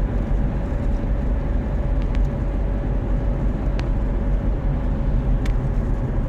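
Car running on the road: a steady low rumble with a thin, steady whine above it and a few faint ticks.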